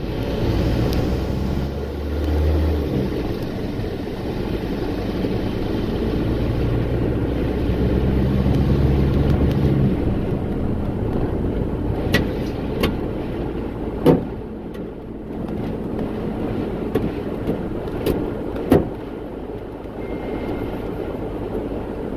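Car engine and road noise heard from inside a moving car, a low engine hum shifting in pitch during the first half. Several short, sharp knocks come in the second half, two of them the loudest sounds.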